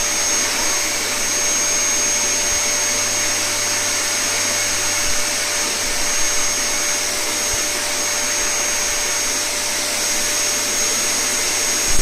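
Cylinder vacuum cleaner running steadily, its motor giving an even rushing noise with a constant high-pitched whine.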